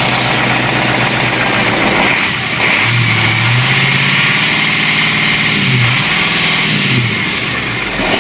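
Caterpillar 3208 V8 marine diesel running loudly in an engine room. Its pitch rises about three seconds in and drops back about seven seconds in.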